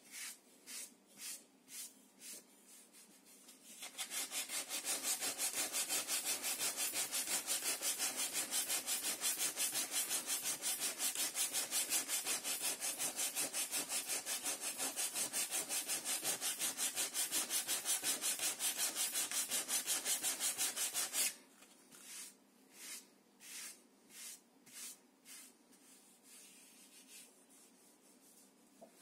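Sandpaper, held in a cloth, rubbed quickly back and forth over the wooden planking of a model ship hull. The sanding starts about four seconds in and stops abruptly about two-thirds of the way through. Before and after it come slower, softer strokes of a hand wiping sanding dust off the hull.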